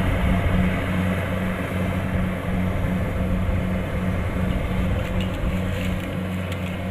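Kubota DC-70 Plus combine harvester's diesel engine running steadily with a low hum, growing slowly quieter.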